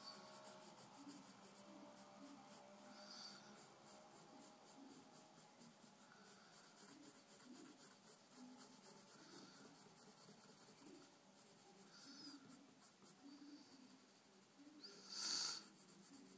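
Pencil scratching faintly on paper in short, repeated shading strokes. A brief, louder high squeak comes about a second before the end.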